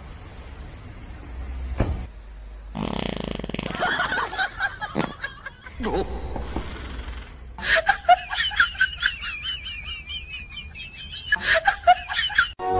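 A person burps, a long rough burp about three seconds in, then laughter in the second half.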